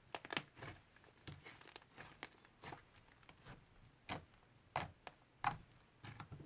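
Hands squishing and kneading slime, with irregular sticky pops and clicks. The loudest come about four, five and five and a half seconds in.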